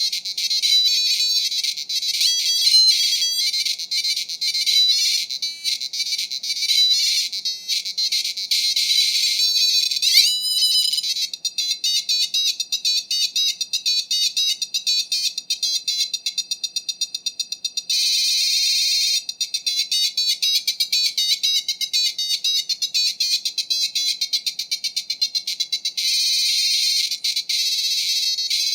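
Demo music played on a PC speaker: fast, high-pitched runs of beeping notes, with a quick rising sweep about ten seconds in.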